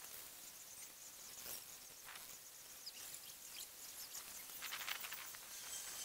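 Faint outdoor ambience: a thin high hiss with a few soft ticks and rustles, including a quick run of ticks near the end.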